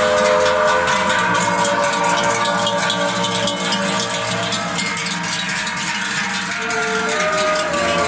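Many large cowbells on a passing herd of cows ringing together, a dense clanging with overlapping held tones that change as different bells swing past.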